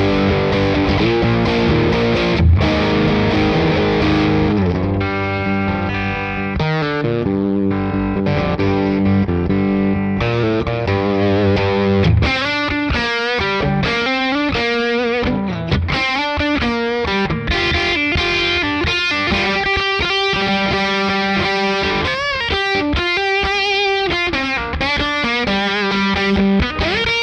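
Electric guitar played through the JHS Clover preamp boost and Whitey Tighty compressor into a Fender '65 Deluxe Reverb amp. It rings out held chords for about the first twelve seconds, then moves into a quicker lead line with bent, wavering notes.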